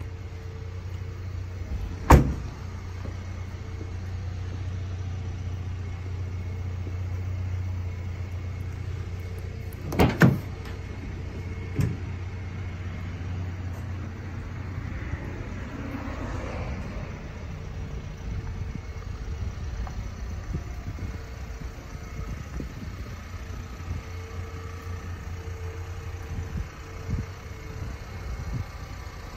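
A Ford Maverick pickup with a low steady hum, likely the truck idling, which fades about halfway through. A door shuts with a sharp slam about two seconds in, two heavy thumps come close together around ten seconds, and a lighter knock follows.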